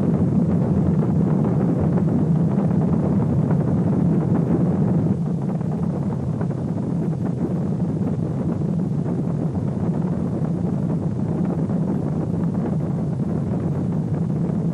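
A steady, loud, low rumbling roar, a little quieter from about five seconds in.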